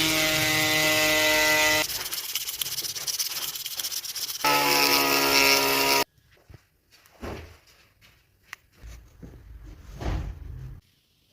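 Small electric power tool running at a steady pitched whine, turning rougher for a couple of seconds as it works the wood, then cutting off abruptly about six seconds in. A few faint scrapes and knocks follow, and it goes nearly silent near the end.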